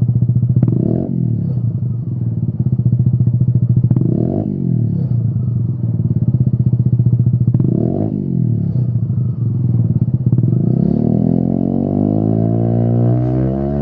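Peugeot Speedfight 125 scooter engine running through a Lextek XP10 aftermarket silencer, revved with the rear wheel off the ground. Three short throttle blips come about three and a half seconds apart over the running engine. From about ten seconds in, a longer rev climbs slowly and holds.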